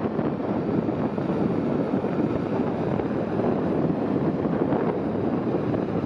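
CAT 140M2 motor grader's diesel engine running as the machine drives past, its blade scraping and pushing dirt, mixed with wind buffeting the microphone. A steady, rough noise with no clear pitch.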